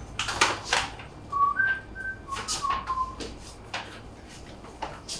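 Someone whistling a handful of short notes, some rising and some falling, over short hissing sounds and a low steady hum.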